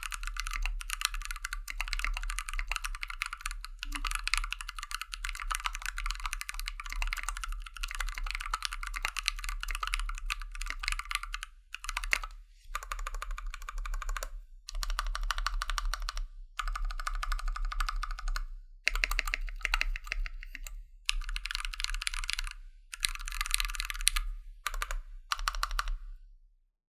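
Typing on a custom 60% aluminium-case keyboard with lubed and filmed TKC Kiwi tactile switches, a brass plate and PBT keycaps. There is continuous fast typing for about eleven seconds, then a run of short typing bursts with brief pauses between them. The typing stops shortly before the end.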